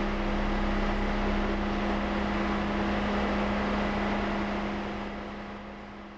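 A steady mechanical hum over a rushing noise, fading out over the last second and a half or so.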